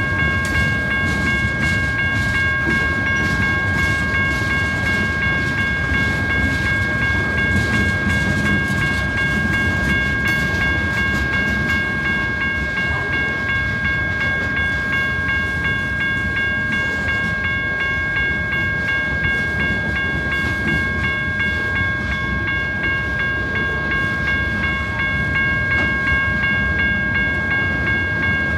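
Freight cars of a BNSF manifest train rolling past at close range: a steady low rumble with wheel clicks over the rail joints, and a steady high ringing tone held throughout.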